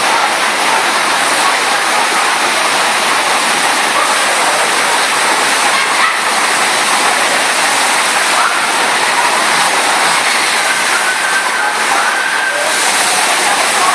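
Steady, loud rush of water pouring up and over a FlowRider surf machine's standing wave, churning into white foam.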